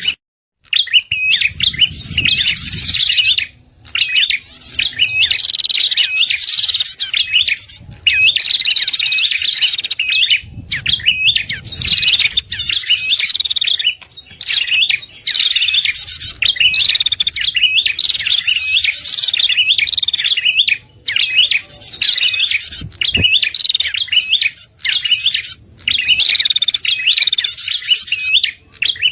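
Recorded lure song of a red-headed prenjak: rapid, loud chirping phrases repeated in bursts of a second or two with short pauses between.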